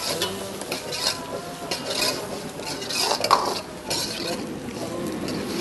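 Long-handled metal ladle scraping and stirring thick gravy in a large metal kadai, a stroke about once a second, with a sharper metal clink about three seconds in.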